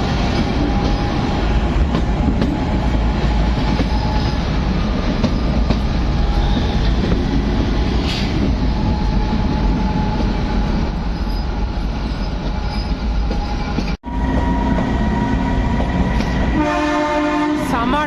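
Kalka–Shimla narrow-gauge toy train running with a steady rumble. Near the end the locomotive's horn sounds once for about a second and a half.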